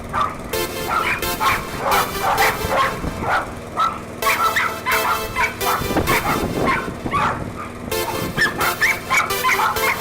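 A dog barking and yipping repeatedly over background music.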